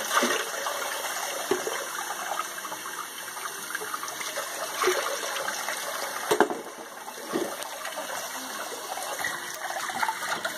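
Water sloshing and splashing as a wet dog is scrubbed by hand in a shallow bath, with a few sharper splashes along the way.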